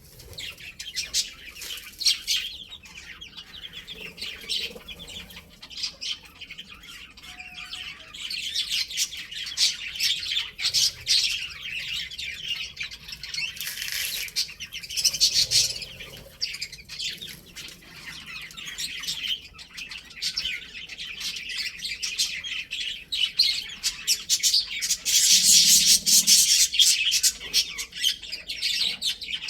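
Many small birds chirping and chattering continuously, with a louder, denser burst of chatter about 25 seconds in.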